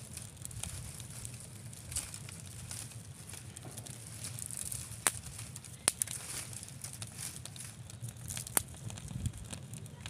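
Twig fire crackling in a mud hearth under a cooking pot, with three sharp pops in the second half.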